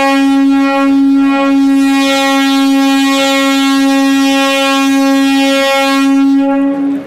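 Electric train's horn sounding one long, steady blast on a single note, cutting off near the end.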